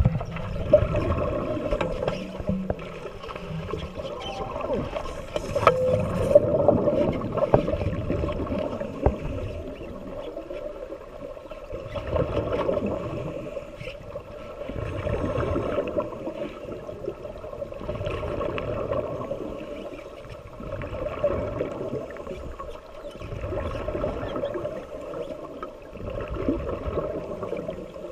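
Muffled underwater water noise heard through a GoPro's waterproof housing, swelling and fading every few seconds.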